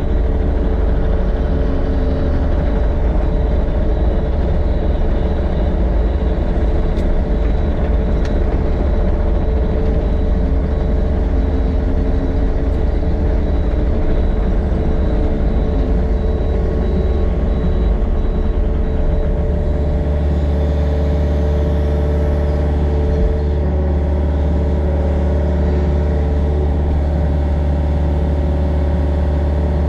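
Excavator's diesel engine running steadily under work as it carries and moves dirt in its bucket. The engine note shifts and settles into a steadier drone about two-thirds of the way through.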